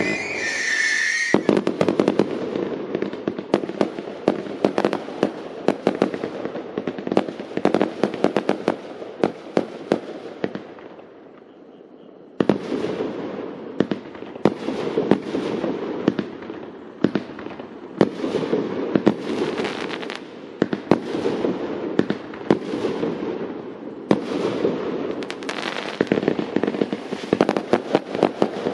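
30 mm firework battery (cake) firing a rapid, irregular string of shots and bursts. A high steady tone cuts off about a second in. The firing thins out to a lull around eleven seconds in, then resumes abruptly a second or so later.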